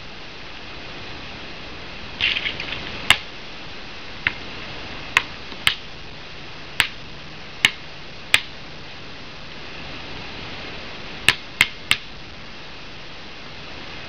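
Basketball bouncing on a hard court: a brief rattle about two seconds in, then a series of single sharp bounces under a second or so apart, with three quick ones near the end, over a steady hiss.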